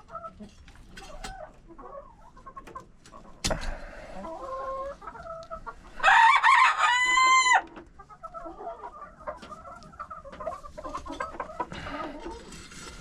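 Chickens clucking softly, with a single loud rooster crow starting about six seconds in and lasting under two seconds. A sharp knock sounds a few seconds in.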